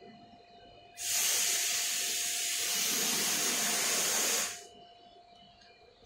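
A loud, steady hiss starts suddenly about a second in and dies away about three and a half seconds later, over a faint steady hum.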